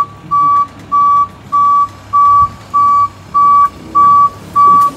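Delivery truck's reverse alarm beeping steadily in a single high tone, about eight evenly spaced beeps, as the truck backs up.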